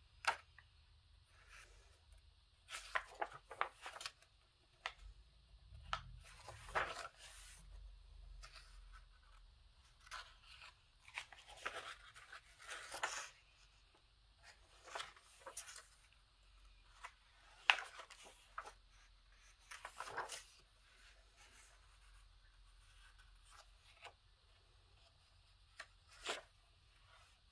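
Pages of a paperback coloring book being turned one after another: faint, irregular paper swishes and rustles every second or few.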